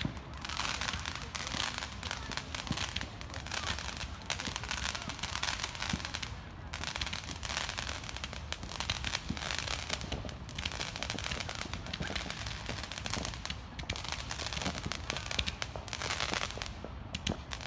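Fireworks crackling: long runs of rapid small pops, in several bursts of a few seconds each with short breaks between them.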